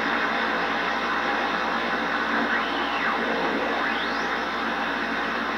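Yaesu FRG-7 shortwave receiver's speaker giving steady band static (hiss) while tuned across the 40-meter band in USB mode. Faint whistles slide up in pitch about two and a half to four seconds in, as the tuning passes weak signals.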